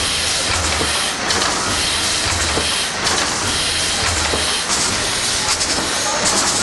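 Victorian triple-expansion steam pumping engine running: a steady hiss of steam over the clatter of its moving parts, with a low throb that swells and fades about every second and a half, in time with the engine's strokes.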